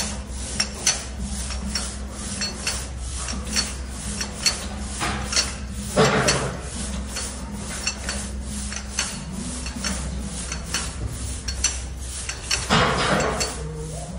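Irregular metallic clicking and clinking from gym equipment, a few clicks a second, over a steady low hum. Two louder rushing bursts come about halfway through and again near the end.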